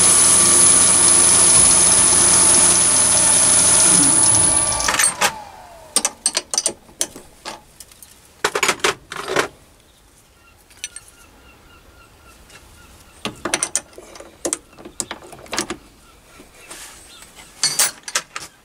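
Chinese mini lathe spindle running steadily with a high whine, switched off about 4 s in and spinning down, followed by scattered sharp metallic clicks and knocks.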